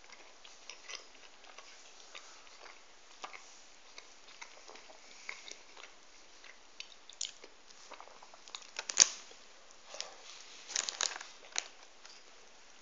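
A person chewing and biting a donut, with small scattered mouth clicks. A single sharp click about nine seconds in is the loudest sound, followed by a short run of louder clicks and rustles near the end.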